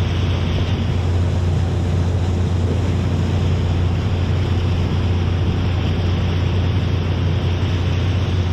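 A boat's motor running steadily underway, a constant low hum under the rush of water and wind buffeting the microphone.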